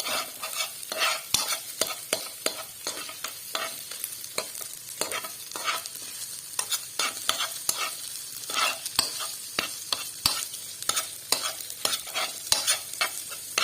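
Egg fried rice being stirred in a hot pan: a utensil scraping and knocking against the pan in quick, irregular strokes over a steady sizzle of frying.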